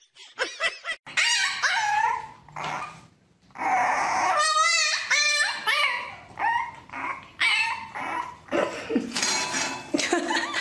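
Puppy whining and yipping: a string of high cries that rise and fall in pitch, one with a fast warble near the middle.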